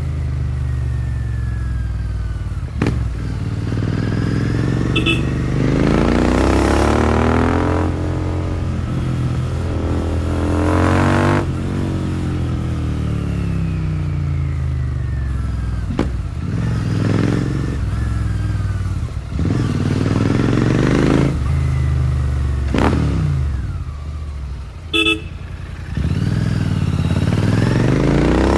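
Royal Enfield Continental GT650's parallel-twin engine breathing through a Powerage short cone aftermarket exhaust, accelerating and shifting up through the gears several times, the pitch climbing through each gear and dropping at each shift. A vehicle horn beeps briefly about five seconds in and again, louder, near the end.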